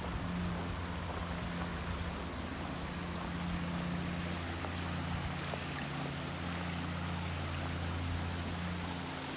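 Steady rushing outdoor noise with a low, even hum underneath, with no distinct events.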